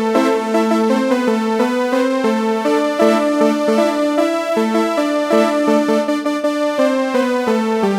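Pianika (melodica) playing a telolet-style bus-horn tune in held, reedy notes that change every fraction of a second, sometimes two sounding together.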